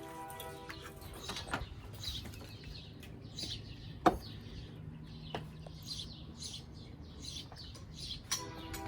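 Small birds chirping over and over in short high calls, with a few clicks and one sharp click about four seconds in.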